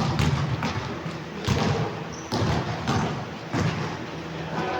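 Basketball bouncing on an indoor court floor: a run of irregular thuds, about six of them, over a low steady hum, with a brief high squeak about two seconds in.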